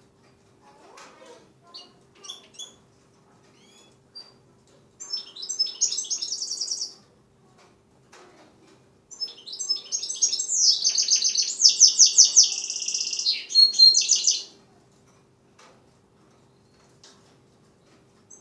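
Six-month-old goldfinch mule (goldfinch × canary hybrid) singing: scattered chirps, then a short burst of song about five seconds in and a longer run of fast, high trills from about nine to fourteen and a half seconds. A faint steady hum sits under it.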